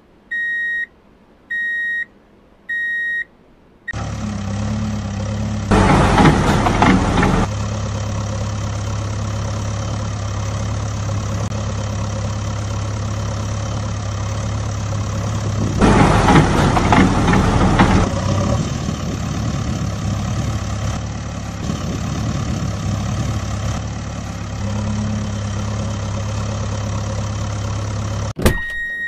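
Digger engine sound effect: reversing beeps about once a second, then a steady diesel engine hum with two louder, harsher stretches. A sharp click near the end cuts the engine off, and the beeping starts again.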